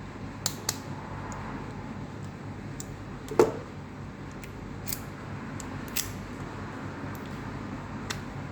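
Small sharp metallic clicks and taps, irregular and scattered, from parts of a Toyota ignition lock cylinder being handled and fitted back together; one louder click about three and a half seconds in.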